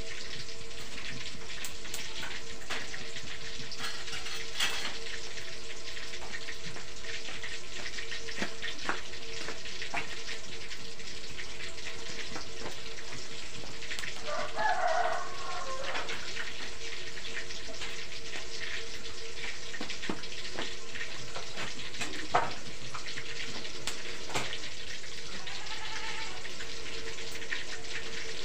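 Tofu frying in hot oil in a wok: a steady sizzle with crackles all through. A chicken calls briefly about halfway through, and there is a single sharp knock a little later.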